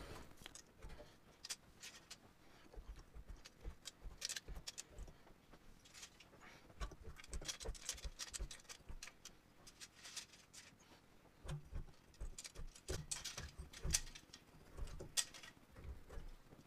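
Faint, irregular clicking and light clatter of Yamaha CS-80 white keys, plastic keys on metal levers, being lifted out of the keybed and bunched together in the hand, with a few soft knocks.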